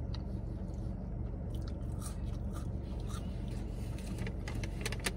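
A man chewing soft, soggy French fries with his mouth, giving small scattered clicks and smacks that come thicker near the end, over a steady low hum.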